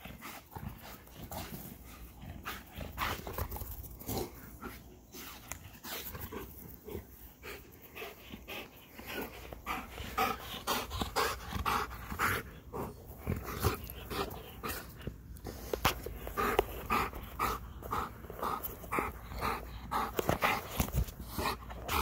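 Belgian Malinois panting hard from exertion, short breaths in a regular rhythm that grows louder and steadier about halfway through.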